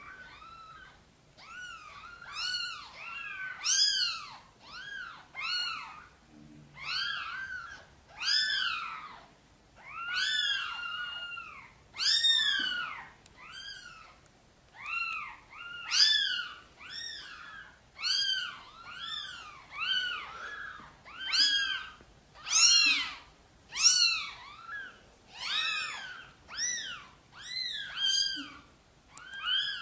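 Cats mewing: a steady run of short, high-pitched mews that rise and fall, a bit more than one a second, some overlapping one another.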